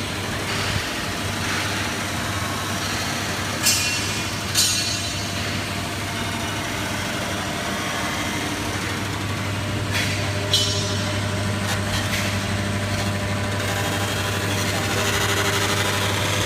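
Welding unit of a transformer radiator production line running, with a steady low electrical hum. Twice, a pair of short sharp bursts of noise cut in.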